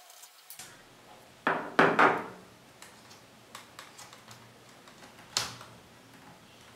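Hands and a small screwdriver handling the plastic and metal parts of an open laptop while its cooling fan screws are undone and the fan is worked loose: scattered light clicks, a louder couple of knocks about two seconds in, and a sharp click a little after five seconds.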